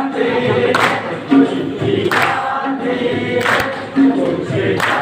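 A group of voices singing together in chorus, with a sharp beat about every one and a half seconds keeping the rhythm.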